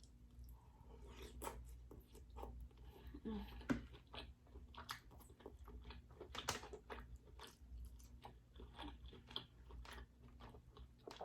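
Faint, close-up chewing of king crab meat: irregular wet mouth sounds and lip smacks, with a sharper click a little before four seconds in.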